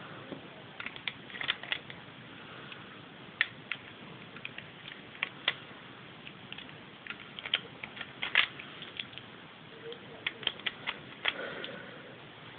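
Hard plastic Lego bricks clicking and rattling as a rubber-band Lego gun is handled: irregular sharp clicks, some in quick clusters, with short pauses between.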